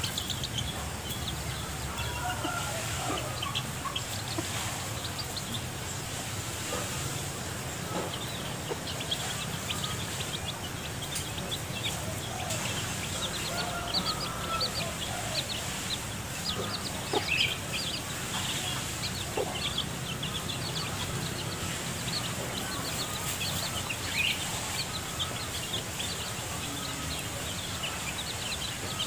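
Hen clucking while her chicks peep with many short, high chirps, over a steady high hiss.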